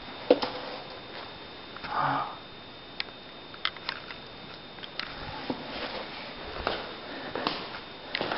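A person breathing and sniffing close to the microphone, out of breath after a climb, with one clear breath about two seconds in. Sharp clicks and knocks of a handheld phone being moved about, the loudest just after the start.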